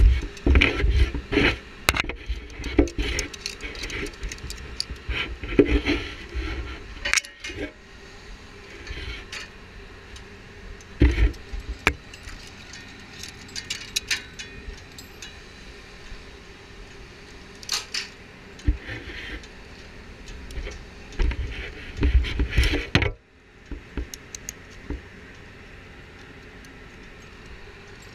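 Derrickhand climbing a steel drilling-rig derrick ladder: irregular metal clanks, clinks and knocks as hands and boots work the rungs. The clatter stops suddenly about two-thirds of the way through, leaving a quieter steady background.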